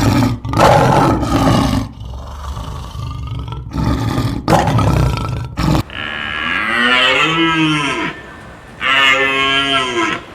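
Rough, noisy animal roaring calls, then two long cow moos that rise and fall in pitch.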